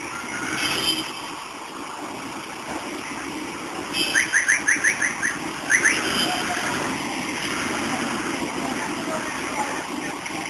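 Street ambience: a steady wash of traffic noise, with a quick run of about seven short rising chirps about four seconds in and two more shortly after.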